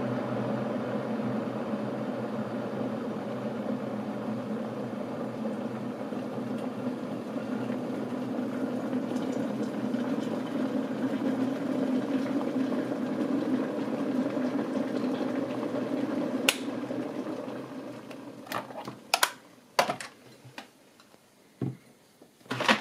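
Electric kettle coming to the boil, a steady noise of heating water. About sixteen seconds in a sharp click, the kettle switching itself off, and the boiling noise dies away over a couple of seconds. A few clicks and knocks follow near the end, a ceramic mug being set on its saucer.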